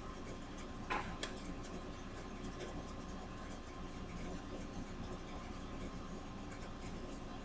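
Steady low room hum and microphone hiss, broken by two short sharp taps about a second in and a few fainter ticks.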